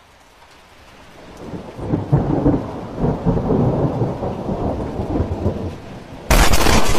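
Rain with rolling thunder rumbling and swelling. About six seconds in, a sudden, far louder clap of thunder crashes in.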